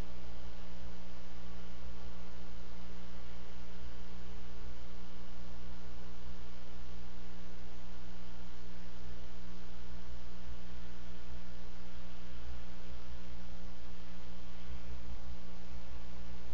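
Steady electrical hum of several fixed tones over constant hiss, with a low rumble that wavers under it, picked up by a wildlife camera's outdoor microphone. No eagle calls stand out.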